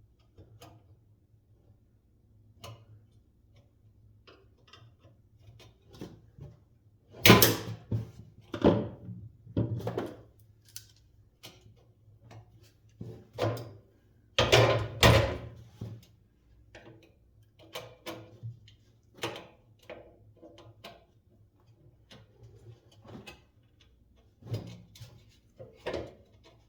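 Scattered clicks, knocks and short scrapes of metal parts being handled as a nail is worked out of a vintage box fan, with two louder scraping clatters about seven seconds in and around fifteen seconds. A faint steady hum lies underneath.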